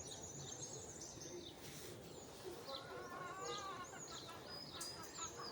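Several birds chirping, with many short curved calls and a longer warbling call about halfway through, over a faint steady background rush.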